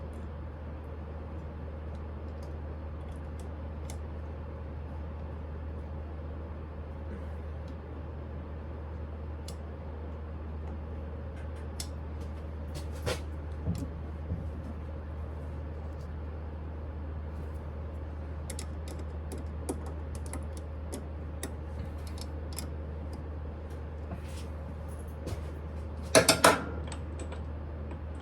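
Light, scattered clicks and taps of metal tools and parts being handled while a bench lathe is set up, over a steady low hum. A short louder clatter comes about 26 seconds in.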